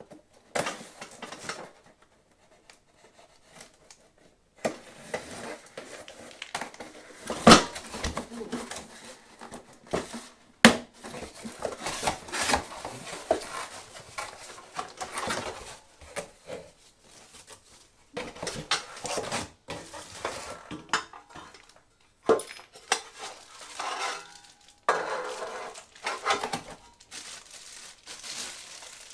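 Parts being unpacked by hand: cardboard box flaps and packing paper rustling, a plastic bag crinkling, and steel stand parts clattering against each other and the tiled floor, with two sharp knocks a few seconds apart in the first half.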